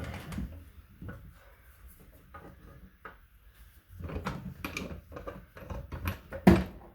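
Scattered clunks and knocks of a jack being set under the motorcycle and raised just enough to take the weight off the front wheel, with one loud knock near the end.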